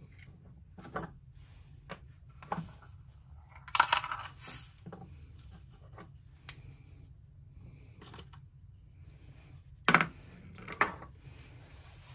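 Light clinks and clicks of small metal and plastic parts as an inertia bullet puller is opened and a pulled rifle bullet and its powder are tipped into a plastic tray. The loudest is a cluster of clinks about four seconds in, with two sharp clicks near the end.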